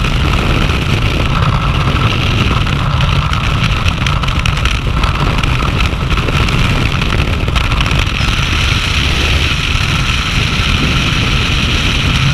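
Freefall wind rushing over a body-mounted camera's microphone: a loud, steady, buffeting wind noise, heaviest in the low end.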